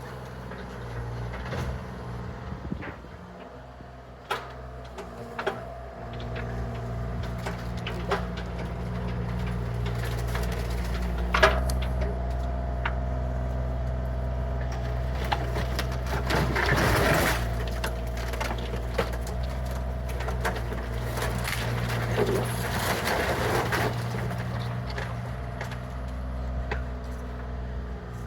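Excavator diesel engine running steadily under load while wood and debris crack and crunch, with scattered sharp knocks and two longer crashing stretches in the second half, the sound of a garage being torn down.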